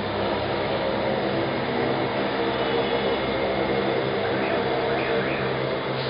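Electric motor running steadily, turning a homemade multi-rotor coil generator, with a constant hum of several steady tones.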